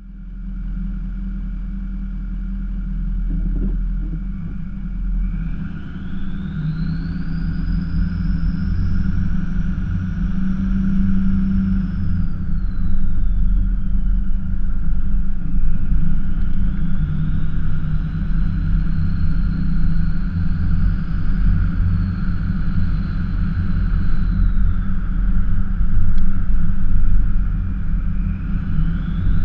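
Ford F-350 pickup driving, heard from inside the cab: a steady low engine and road rumble. A high whine rises and falls in pitch twice and starts rising again near the end.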